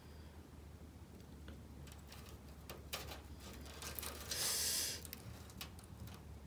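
Faint rustling and crackling of dry straw held against the glowing elements of an electric heater to catch it alight, with a short hiss about four seconds in and a steady low hum underneath.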